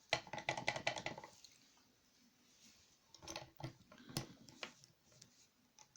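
Light metallic clicks and rattles of an Abloy Protec II lock and its key being handled: a quick cluster in the first second, then a few scattered clicks about halfway through.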